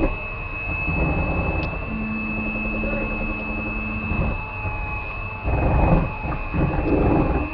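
Electric hand mixer running at medium speed, its beaters churning cake batter in a glass bowl, with a steady high whine.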